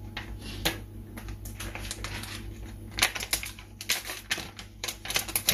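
Irregular light clicks and crackles from hands handling food and packaging on a kitchen counter while cheese and ham sandwiches are assembled, few at first and coming thick and fast from about halfway through, over a steady low hum.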